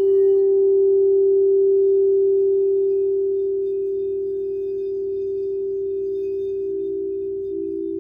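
Frosted crystal singing bowls from a chakra-tuned set. One bowl holds a single clear ringing tone that slowly fades. Near the end a second, slightly lower bowl tone swells in, pulsing in and out as that bowl is played with a rubber-tipped mallet.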